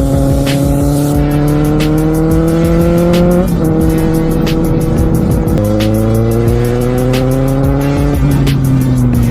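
Kawasaki Z750R's inline-four engine heard onboard with wind noise, pulling up through the revs, dropping in pitch at a gear change about three and a half seconds in, then climbing again before easing off near the end.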